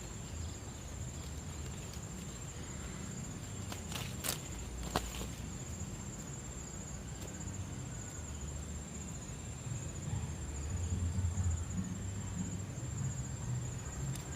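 An insect chirring steadily in a high, evenly pulsing tone over a low rumble, with two sharp clicks about four and five seconds in.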